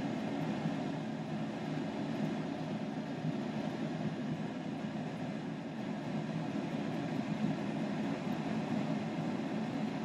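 Steady low background hum with no distinct clicks or knocks.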